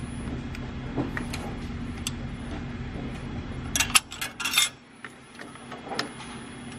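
Hand tools clinking against a Duramax diesel's rocker arms and adjusters during valve lash setting. A cluster of sharp metallic clicks and taps a little under four seconds in is the loudest part, and a couple of lighter taps come about two seconds later. Under the clicks runs a steady low hum that drops away suddenly as the clicks come.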